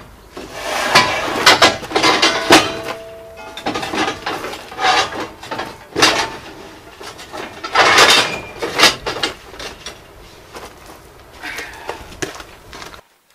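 Stainless steel sheet offcuts clanking and scraping as they are pulled out of a van and handled, with irregular metallic bangs and a brief ringing of the steel about two and a half seconds in.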